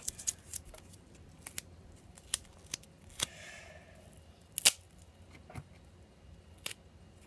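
Duct tape and scissors being handled at a worktable: scattered small clicks and scissor snips, with a short rasp of tape about three seconds in. The loudest sharp click comes just before five seconds.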